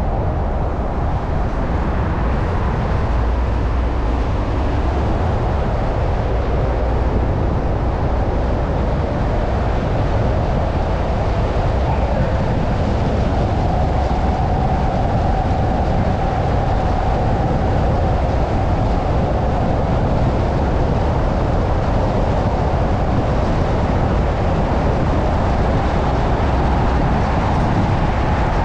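Steady road noise of a car driving at speed: tyre rumble and wind, unbroken throughout, with a faint steady whine joining about halfway through.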